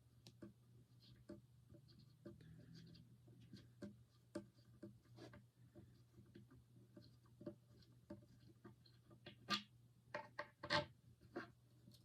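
Grip tape on a longboard deck being punctured and scraped through with a hand tool at the truck mounting holes: faint scattered scratching and small clicks, with a few louder sharp clicks about ten seconds in.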